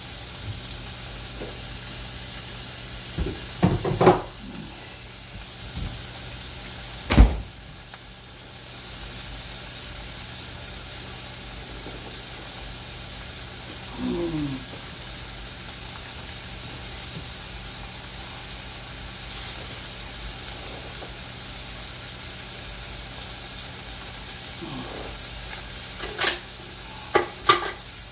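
A steady hiss runs throughout, broken by knocks and clatter of kitchen things being handled: a sharp knock about seven seconds in, and a few clicks and knocks near the end.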